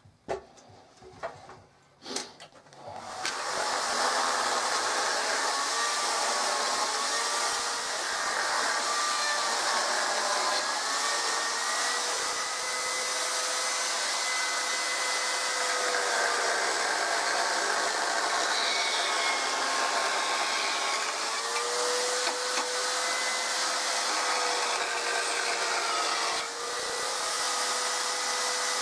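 Two knocks, then from about three seconds in a chainsaw cutting into a clamped wooden block, running loud and steady with its pitch wavering as the cut goes in, and easing off briefly near the end.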